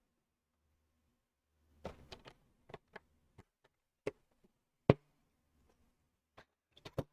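Plastic LEGO bricks clicking and clattering as pieces are handled and pressed together. There are a dozen or so separate sharp clicks, irregularly spaced, with the loudest about five seconds in.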